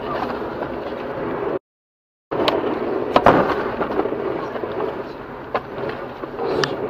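Road noise inside a car skidding on an uneven, snowy road, with several sharp knocks and thumps from the car jolting, the loudest about three seconds in. The sound cuts out completely for most of a second after about a second and a half.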